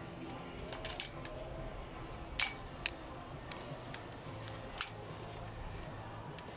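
A steel tape measure being handled and laid along a fibreglass centerboard, making a handful of sharp metallic clicks and taps, the loudest about two and a half seconds in.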